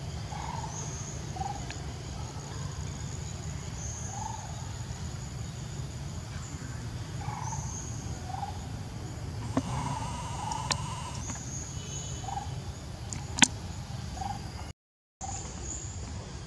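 Birds calling in the background, likely fowl: short mid-pitched calls about once a second, mixed with thin high chirps, over a steady low hum. A single sharp click comes about 13 seconds in.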